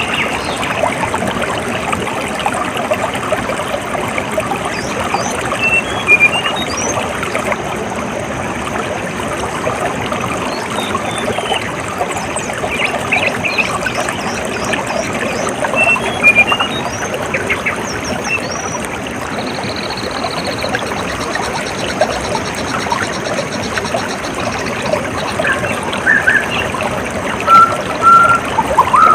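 Water trickling and running steadily, like a small stream, with scattered bird chirps over it. A rapid high buzzing trill comes in about two-thirds of the way through, and a few louder chirps come near the end.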